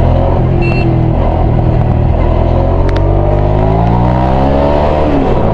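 Hyosung GV650's V-twin engine running under load, heard through a microphone inside the rider's helmet. Its pitch climbs steadily as the bike accelerates, then drops near the end. A short high beep sounds about half a second in.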